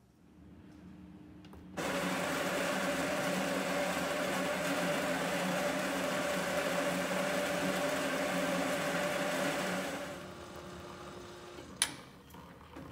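Schaerer Coffee Art Plus super-automatic espresso machine's built-in grinder running steadily for about eight seconds, a loud, even whir with a held motor tone, before it winds down. A quieter motor hum comes before it, and a single sharp click of the machine comes near the end.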